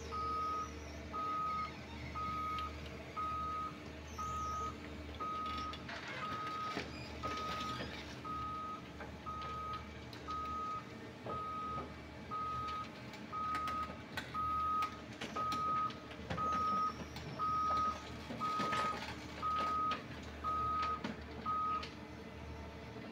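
A heavy-equipment backup alarm beeping steadily about once a second over the steady running of a Cat 330D excavator's diesel engine, stopping shortly before the end. Metal clanks and scraping come about a quarter of the way in and again near the end, as the overturned dump truck is dragged and tipped back onto its wheels.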